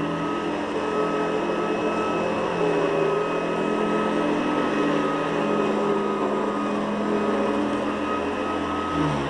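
Hoover Guardsman upright vacuum cleaner running steadily, a constant motor whine over a rushing noise.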